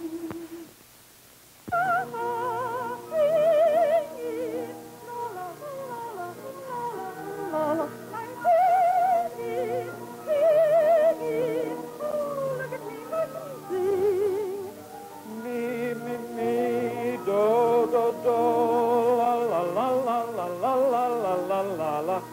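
Vintage film-soundtrack music: an operatic-style melody with heavy vibrato over sustained orchestral accompaniment, after a brief quiet gap about a second in.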